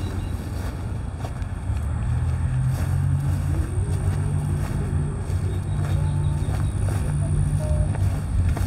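Diesel-electric locomotive engine idling: a steady low drone that grows louder about two seconds in, with wind buffeting the microphone.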